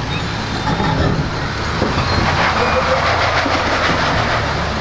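Jeep engine running at crawling speed on a rock trail. It grows louder and rougher for a couple of seconds from about two seconds in.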